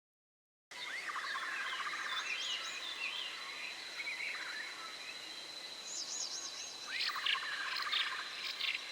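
Birds calling, with trilled chirps and wavering high whistles, over a steady high insect drone. The sound starts abruptly under a second in, and a very similar run of calls comes again about six seconds later.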